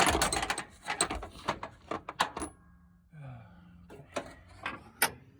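Hand ratchet clicking in quick runs of strokes as it tightens the bolt on an alternator tensioner bracket, drawing the alternator forward to take up slack in the drive belt. There is a short pause about three seconds in before the clicking resumes.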